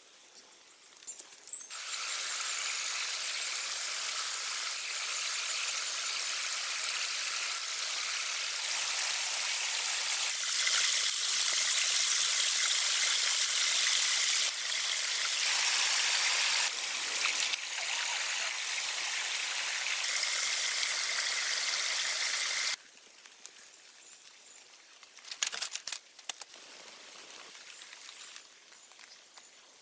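Shallow stream water rushing and splashing over rocks, a steady rush that jumps in level at several cuts and stops abruptly about three-quarters of the way through. The rest is much quieter, with a few clicks.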